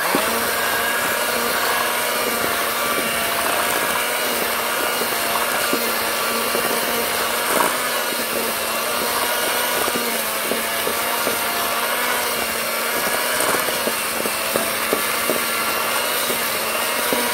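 Electric hand mixer running steadily, its twin beaters creaming butter and sugar in a stainless steel bowl, with scattered light clicks.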